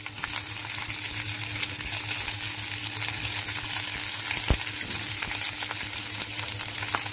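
Chopped onions sizzling in hot oil in a pan, a steady frying hiss, with a single knock about four and a half seconds in.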